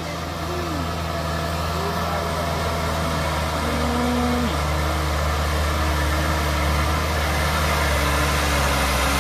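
Diesel engine of a coal-laden Mitsubishi Fuso Canter 136 PS light truck working steadily under load at low speed up a muddy slope. It grows gradually louder as the truck approaches.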